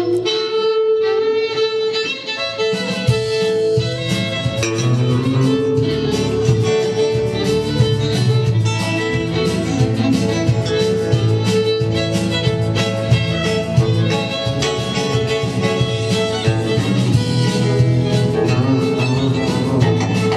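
Live band playing an instrumental opening led by a bowed fiddle melody, with acoustic guitar strumming and electric bass underneath.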